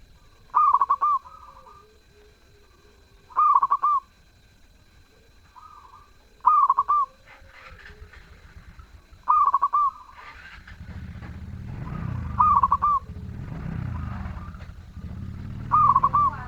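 Zebra dove (perkutut) cooing: six loud, clear phrases about three seconds apart, with softer cooing notes between them. A low rumble comes in about ten seconds in and stays under the later calls.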